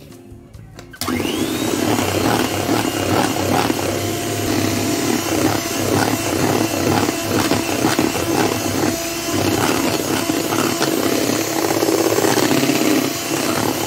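Electric hand mixer switching on about a second in with a brief rising whine, then running steadily as its beaters whisk a thick, partly frozen ice cream mixture in a steel bowl.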